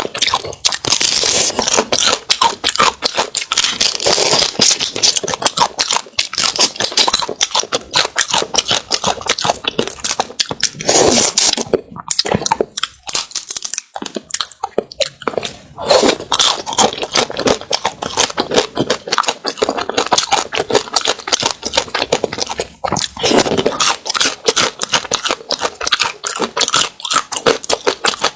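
A person eating a roe-filled crab: the shell crunches and cracks between the teeth, mixed with wet chewing. The crunching goes on almost without a break and eases off briefly a little before the middle.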